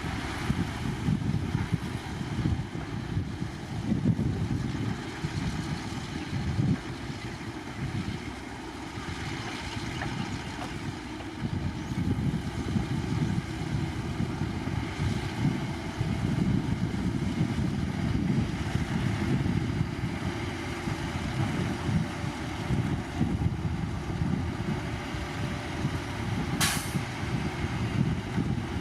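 Heavy diesel earthmoving machinery, dump trucks and a bulldozer, running and working with a steady, uneven engine rumble. Near the end a truck's air brakes let off one short, sharp hiss.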